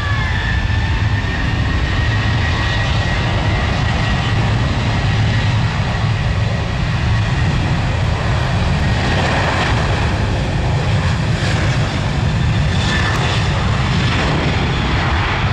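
Ryanair Boeing 737-800's CFM56 jet engines running loudly and steadily as the airliner rolls along the runway, a deep rumble with a thin whine over it early on.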